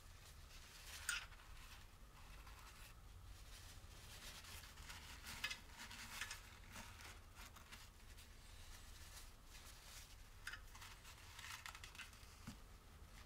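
Faint rustling and rubbing of a paper towel wiping the inside of a gearbox casing, with a few small, sharper scrapes.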